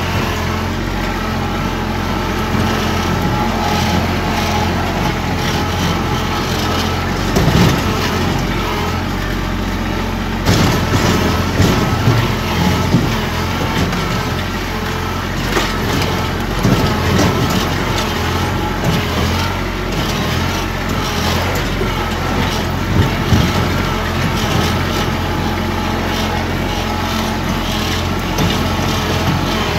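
Compact loader tractor driving over rough ground, its engine running steadily, with scattered knocks and rattles from the machine and loader as it rolls over bumps, the busiest stretch about a third of the way in.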